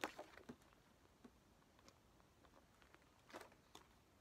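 Near silence, with a few faint, soft rustles and ticks of paper posters being handled.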